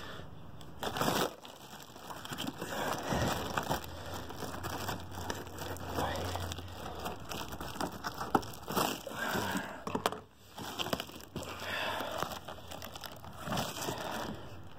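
Plastic shrink wrap and cardboard packaging crinkling and tearing as it is cut with scissors and pulled apart, in irregular rustles with a few sharp clicks.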